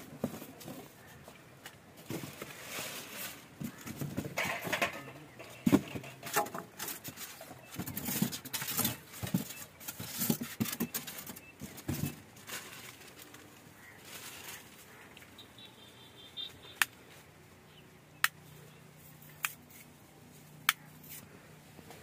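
Irregular rustling and knocking of a handheld phone being moved about, then four sharp clicks about a second and a quarter apart near the end.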